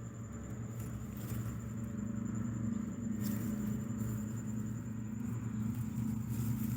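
A steady low engine hum, like a small motor running, with a thin high steady whine of insects above it.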